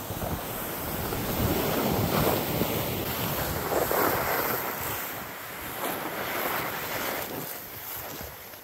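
Strong wind gusting in swells and buffeting the microphone, loudest through the middle and easing toward the end.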